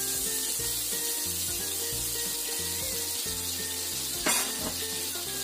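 Chopped garlic sizzling in hot melted butter in a wok as it is stirred with a metal spatula, with a steady hiss of frying. About four seconds in, the spatula knocks once sharply against the wok.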